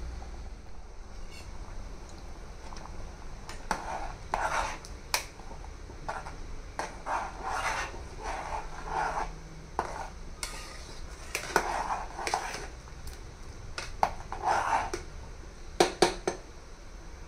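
Metal ladle stirring thick sambar in a metal cooking pot: repeated scrapes and clinks of the ladle against the pot's sides and bottom, with a few sharp clinks near the end.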